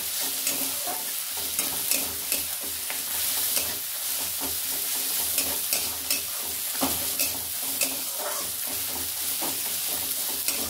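Onions and ginger-garlic paste frying in mustard oil in a kadhai, with a steady sizzle, while a steel spatula stirs them and scrapes and clinks against the pan at an irregular pace.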